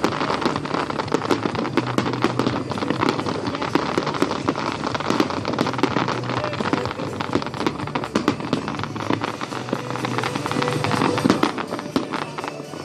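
Fireworks crackling: a dense, continuous shower of many sharp little pops that blend into a rain-like hiss.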